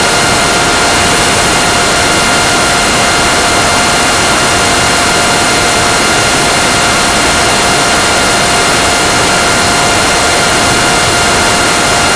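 Onboard audio of an FPV model aircraft in steady cruise: a loud, unchanging rushing hiss with a constant whine and its overtones from the motor, which does not change pitch.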